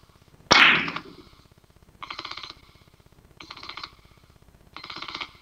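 Three-cushion billiard shot: a sharp crack of the cue striking the cue ball about half a second in, the loudest sound, with a brief ring after it. Three fainter, evenly spaced sounds follow.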